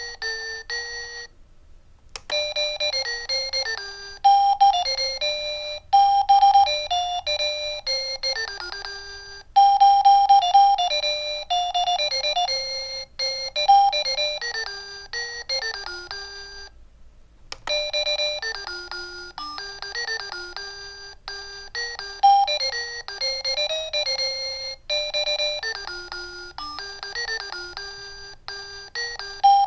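Relohas digital alarm clock playing its built-in alarm tunes through its small speaker: simple electronic melodies, one note at a time. It switches to a new tune twice, after a short break about two seconds in and again about seventeen seconds in, each new tune starting with a click.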